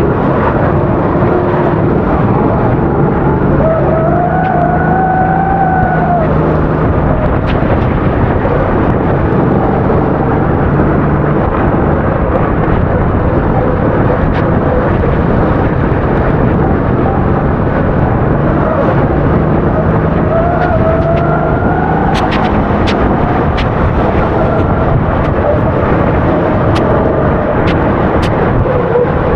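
A 270 cc four-stroke kart engine running hard under racing, its pitch rising and falling twice as it is revved out and backed off, over a heavy noisy rush. Sharp short ticks sound in the last several seconds.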